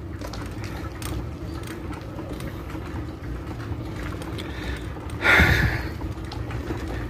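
Bicycle being ridden on a paved road: a steady low rumble of tyres and drivetrain, with a short burst of hissing noise about five seconds in.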